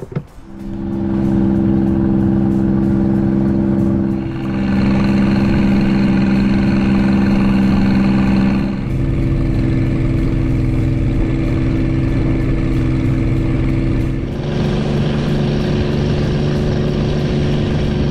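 An engine running at a steady speed. Its note holds steady, then shifts abruptly to a new level three times, about 4, 9 and 14 seconds in.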